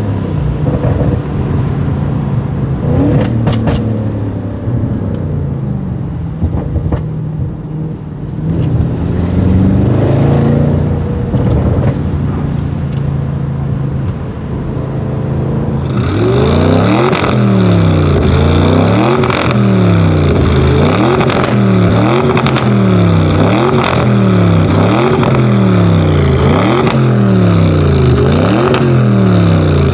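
Audi RS6 Avant C7's twin-turbo 4.0 TFSI V8 through a Milltek exhaust, running at low revs with slow swells in pitch. About halfway through it is revved again and again, about once a second, with sharp crackles between the revs.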